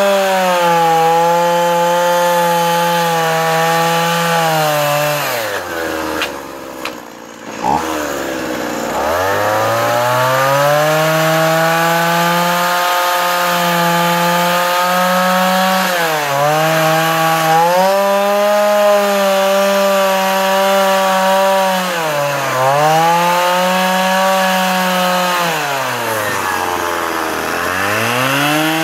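Stihl MS170 two-stroke chainsaw cutting into a wooden post at high revs, the throttle eased off several times. About six seconds in the engine drops nearly to idle for a couple of seconds before revving back up, and it dips again near the end.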